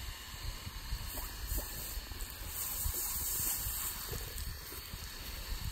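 Garden hose spraying water, a steady hiss with spatter on a dog's coat and the grass, a little louder in the middle.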